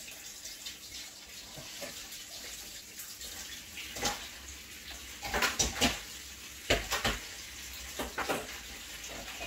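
Tap water running into a kitchen sink, with dishes and pots clattering several times, loudest between about five and seven seconds in.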